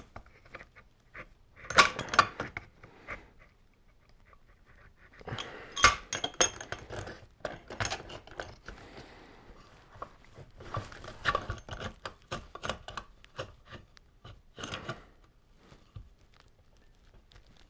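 Irregular metallic clicks, taps and clanks from hand work on a DeWalt DW682 biscuit joiner's blade and arbor nut, in scattered clusters with short quiet gaps, as the spindle lock is held and the nut is worked loose.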